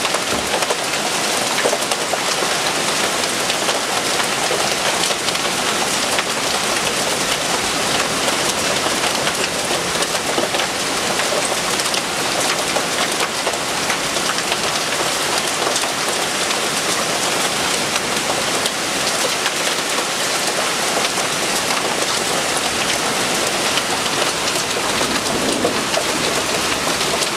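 Heavy downpour of rain mixed with small hailstones pelting down: a steady, dense hiss full of fine ticks.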